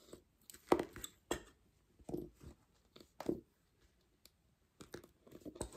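Lace bobbins clicking and knocking together in a string of short, irregular clacks as pairs are handled and twisted on the lace pillow.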